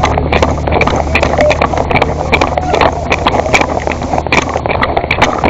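Car engine running steadily with a low hum, overlaid by frequent short clicks and rattles and faint indistinct voices.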